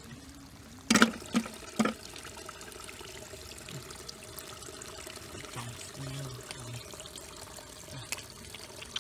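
Water trickling and sloshing, with three sharp, loud hits close together about a second in.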